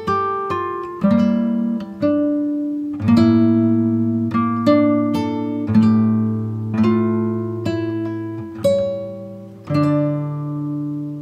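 Background music: plucked acoustic-guitar chords, one about every second, each ringing and fading before the next.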